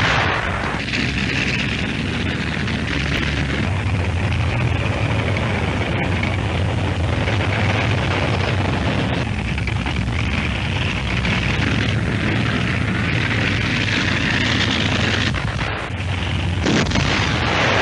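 Dense battle din of artillery fire and explosions, a continuous heavy rumble with scattered sharper bangs, one of them about a second before the end.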